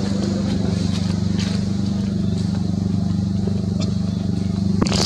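An engine running steadily at an unchanging pitch, with a few faint ticks and a short sharp clatter near the end.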